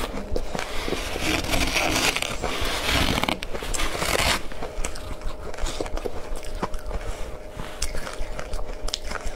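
Close-miked crunching of powdery ice topped with matcha powder as it is bitten and chewed, together with a metal spoon scraping through the ice in a glass bowl. The first few seconds are a dense spell of crunching and scraping. After that come sparser, sharp crunches.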